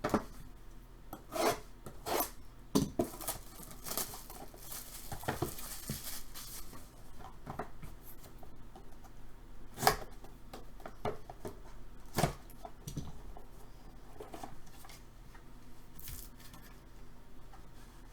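Trading cards and their plastic packaging being handled: scattered sharp clicks and taps, with a stretch of rustling about four to seven seconds in.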